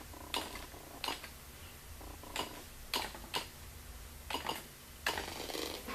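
Single key presses on a computer keyboard, about nine sharp clicks at uneven intervals as a program-load command is typed. A steady rough noise starts about five seconds in.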